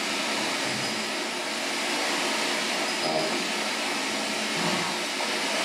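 Spirit box radio scanning through stations: a steady hiss of static that switches on abruptly, with a faint short snatch of sound about three seconds in.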